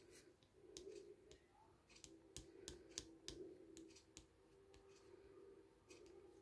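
Near silence: room tone with a faint low hum and scattered light clicks.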